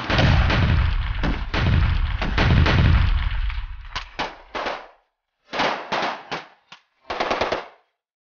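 Heavy gunfire from rifles and automatic weapons: a dense volley with a deep rumble under it for about three seconds, then several short bursts separated by brief gaps, stopping shortly before the end.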